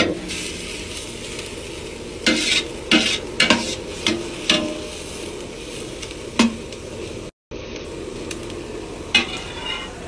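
Sliced onions sizzling in oil in a large stainless steel pot while a metal slotted spoon stirs them, scraping and knocking against the pot several times.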